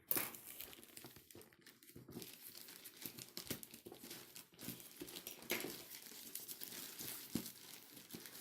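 Parcel packaging crinkling and tearing as it is cut and pulled open by hand, a continuous crackle with sharper crinkles now and then.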